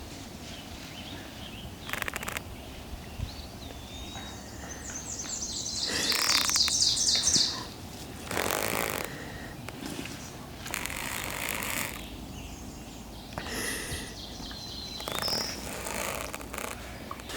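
A small songbird singing a fast, high trill for about two seconds, with a couple of short high chirps before and after. Bursts of rushing, rustling noise come and go throughout.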